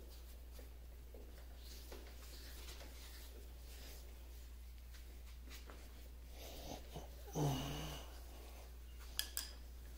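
Faint metal handling at a lathe's carriage handwheel as the loosened part is worked by hand, with one short loud pitched sound about seven and a half seconds in and two sharp clicks near the end.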